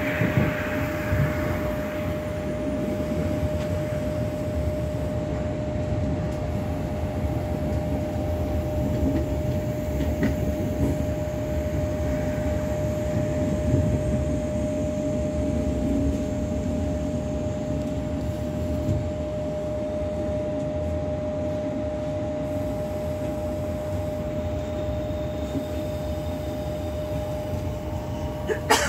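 Steady rumble of a moving vehicle heard from inside the cabin, with a constant mid-pitched hum running under it and a brief click near the end.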